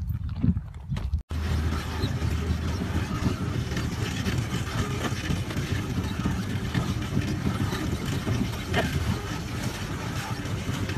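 A boat under way, its engine running with a steady low hum under a constant rush of wind and water. It starts abruptly after a brief dropout about a second in.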